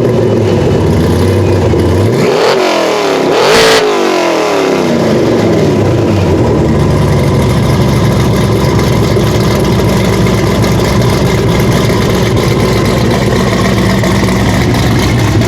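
Loud car engine running steadily, revving up and back down about two to four seconds in, then settling back to a steady run.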